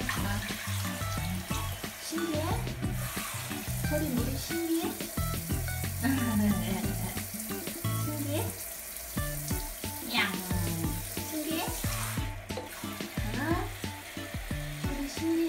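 Water spraying steadily from a handheld shower head in a tiled bathroom, an even hiss that drops out briefly twice.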